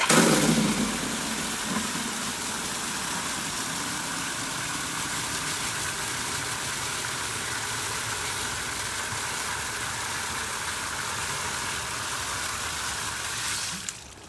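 Water gushing at full flow from an irrigation zone valve's outlet into a plastic bucket, a steady rushing that starts suddenly with a heavier splash into the empty bucket and cuts off near the end. It is a timed bucket-fill test of the valve's flow rate.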